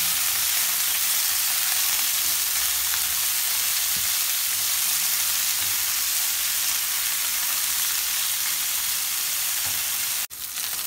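Chicken strips frying in a little hot oil in a nonstick pan, turned with a silicone spatula: a steady sizzle that breaks off abruptly near the end.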